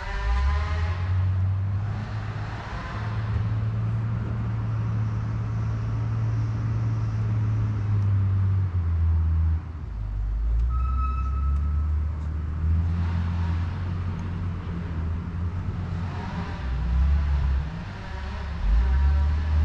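A large engine running with a low, steady rumble. Its speed steps up and down several times.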